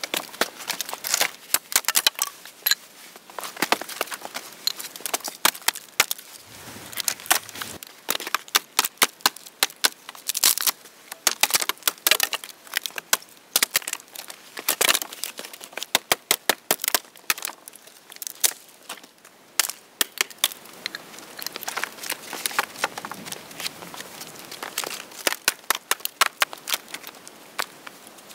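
Dry dead branches snapping by hand and a hatchet chopping at dead wood: an irregular run of sharp cracks and knocks. Near the end, sticks knock together as they are laid against a shelter frame.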